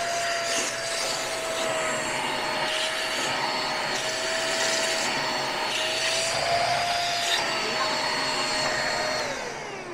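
Deerma DX115C handheld vacuum cleaner running, a steady motor whine over a rush of air as its nozzle sucks at a keyboard wrist rest. Near the end it is switched off and the whine falls in pitch and fades as the motor spins down.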